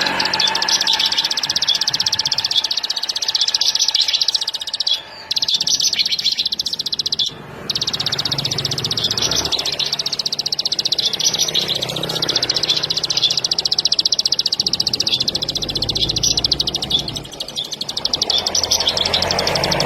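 Ciblek sawah, a small prinia, singing a very fast, unbroken buzzing trill in the rapid-fire 'ngebren' style. It stops briefly twice, about five and seven and a half seconds in.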